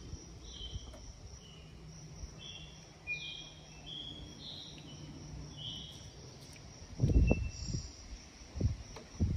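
Outdoor ambience: a steady high-pitched insect trill like crickets, with a bird calling in short whistled notes over the first half. Near the end come a few dull thumps, the loudest sounds.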